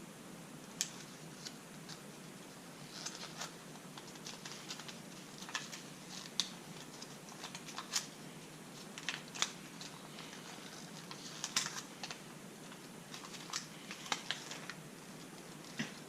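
Irregular light clicks and crinkles of small toy packaging being handled and opened, over a steady hiss.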